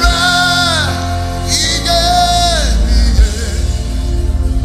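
Gospel worship music: a voice holds two long sung notes, each sliding down at its end, over steady instrumental backing with a deep bass.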